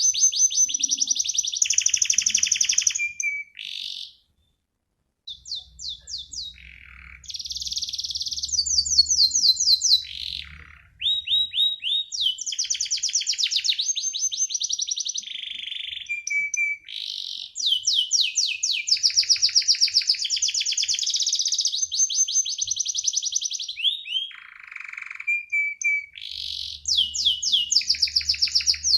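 Domestic canary singing a long song of rapid trills and fast repeated chirping notes, with a brief pause about four seconds in before the song picks up again.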